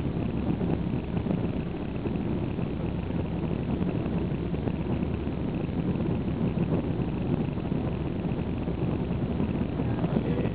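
An airliner's takeoff roll heard from inside the cabin: jet engines at takeoff thrust and a steady, unbroken rumble.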